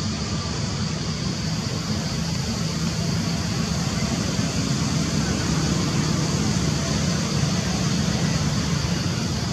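Steady outdoor background noise: an even low rumble with a constant high hiss above it, and no distinct events.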